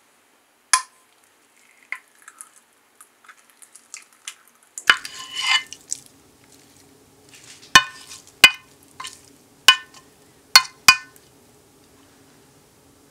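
A utensil loosening and scooping cubes of set gelatin jelly in a glass dish: a single sharp click, a short stretch of scraping about five seconds in, then a series of sharp knocks of the utensil against the glass in the second half.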